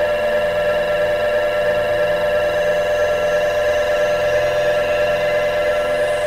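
Ambient, dissonant xenharmonic music in 32-EDO: a dense cluster of held electronic tones built on the combination tones of an octatonic mode, with lower notes that change every second or so beneath it.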